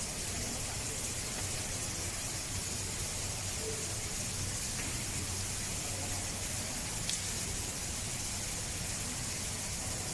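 Steady hiss with a low hum beneath it, and one faint click about seven seconds in.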